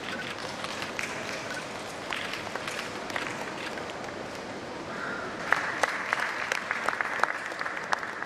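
Audience applauding, the clapping growing louder and sharper about five and a half seconds in.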